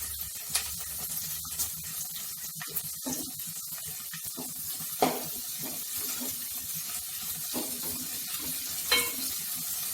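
Onions and curry leaves sizzling in sesame oil in a pan as they are stirred, with a few sharp clicks of the spoon against the pan, the loudest about five seconds in and near the end.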